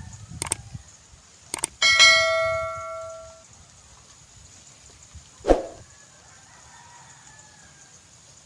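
A couple of light clicks, then a metal object struck once, ringing out and fading over about a second and a half; a dull knock follows a few seconds later.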